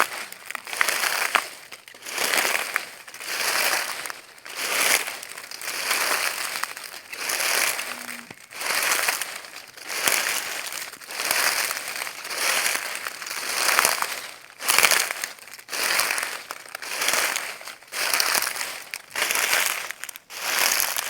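Footsteps crunching through dry leaves at a steady walking pace, about one step a second.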